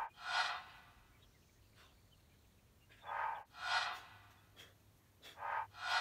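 A man breathing hard while exercising: three pairs of forceful breaths in and out, a couple of seconds apart, with quiet between them.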